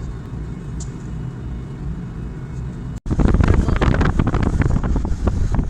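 A low, steady rumble, then an abrupt cut about three seconds in to loud wind buffeting the microphone.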